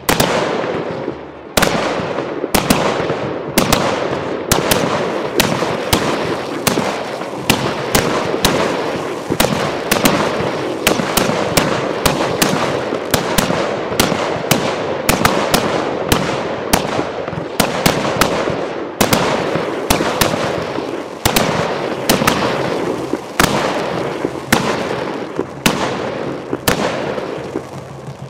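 Fireworks display going off in rapid succession: sharp bangs every second or so over a continuous crackle.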